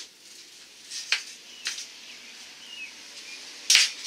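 A welding gun striking a short crackling arc near the end: a quick tack weld joining a metal strap to the ring. Before it, two sharp clicks about a second in and some faint high chirps.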